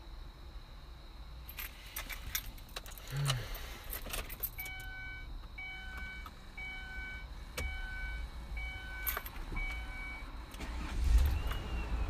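Car keys jangle, then the car's warning chime dings six times, about once a second. Near the end the engine starts and settles into a low running rumble.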